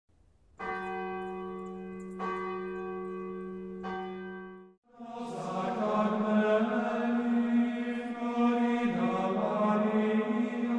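A bell struck three times, each stroke ringing on, then stopping; about five seconds in, voices begin chanting with long held notes.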